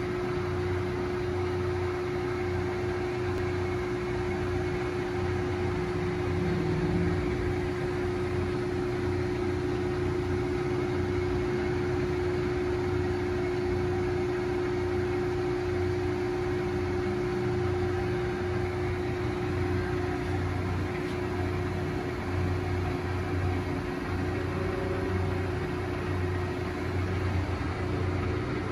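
Steady electric machinery hum: one constant mid-pitched whine over a low drone, unchanging throughout.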